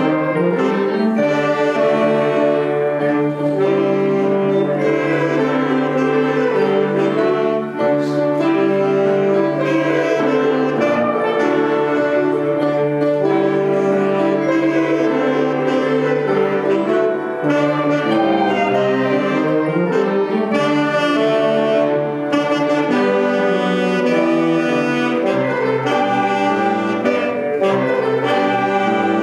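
Student concert band playing: clarinets, flutes and brass together in long held notes over a steady low bass.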